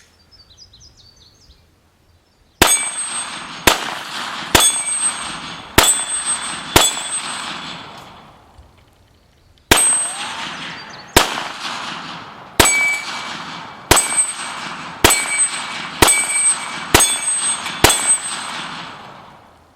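A string of five gunshots, a pause of about three seconds, then eight more, each followed by the clang and ring of AR500 steel dueling-tree plates being hit.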